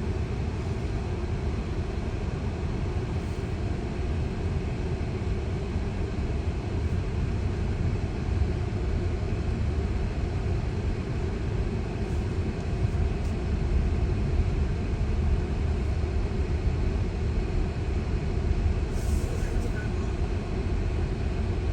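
Steady low tyre and road rumble heard inside the cabin of a Tesla electric car driving slowly, with no engine note.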